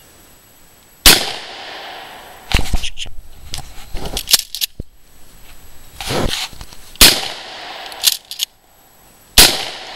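A pump-action 12-gauge shotgun firing three shots: about a second in, at about seven seconds and just after nine seconds, each a sharp bang with a short echoing tail. Between shots there are clusters of clacks from the pump slide being worked to chamber the next shell.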